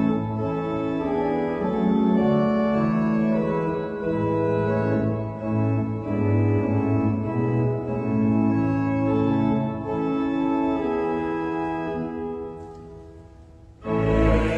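Church organ playing held chords of several notes, dying away just before the end. A choir then comes in loudly in the last moment.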